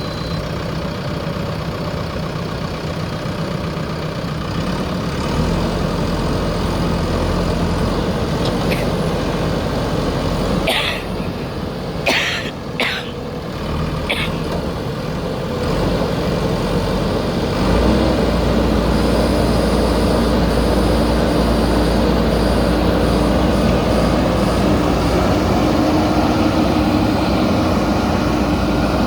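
Diesel engine of a JCB backhoe loader running under work, with a few short hisses near the middle. The engine note rises and holds heavier from about two-thirds of the way through as the machine works harder.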